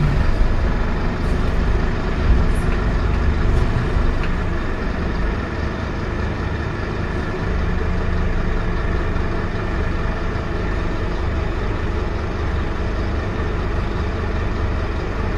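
A Scania K230UB bus's five-cylinder diesel engine running, heard from inside the passenger saloon as a steady low drone. It is a little louder for the first few seconds and eases slightly after about five seconds.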